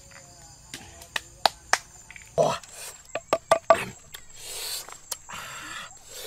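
Wooden pestle pounding in a clay mortar: about eight sharp knocks over the first four seconds, then a few softer swishing sounds. Insects chirp steadily in the background.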